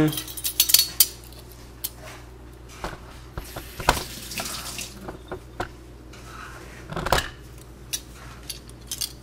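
Metal measuring spoons on a ring clinking against each other as they are handled: a few scattered sharp clinks with quiet gaps between, the loudest about four and seven seconds in.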